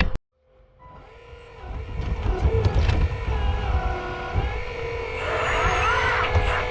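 A 1/8-scale RC 385CF excavator working, its motors and pump whining in pitches that glide up and down as the load changes, over a low rumble with occasional knocks. The sound breaks off to silence for a moment near the start, then builds up again.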